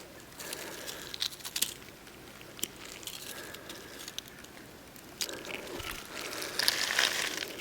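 Smashed iPhone 4S's lithium-ion battery burning, with scattered sharp crackles, then a louder hissing stretch near the end.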